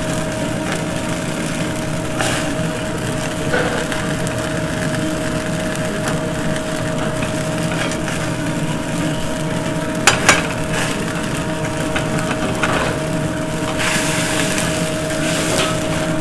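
Busy commercial gas range: burners running under several pans and chicken sizzling in a sauté pan while it is turned with tongs, over a steady hum. Two sharp clicks about ten seconds in.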